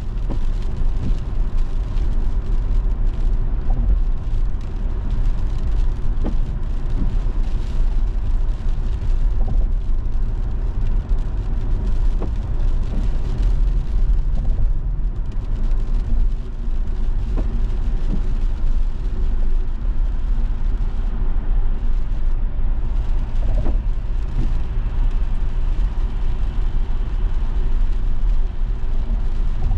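Car driving at speed on a wet road, heard from inside the cabin: a steady low rumble of tyres and engine with a fainter hiss above it.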